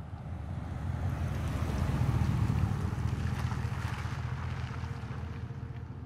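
An SUV driving past close by and pulling away. Its engine and tyre noise swell to a peak about two to three seconds in, then fade.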